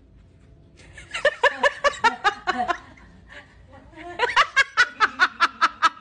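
A person laughing in two bouts of quick, rhythmic pulses, the first starting about a second in and the second about four seconds in.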